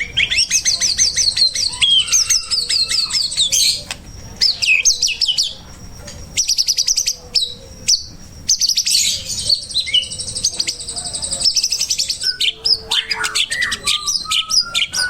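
White-rumped shama (murai batu) singing a loud, fast, varied song of rapid trills and chattering notes with short whistled phrases. It comes in bursts of a few seconds broken by brief pauses.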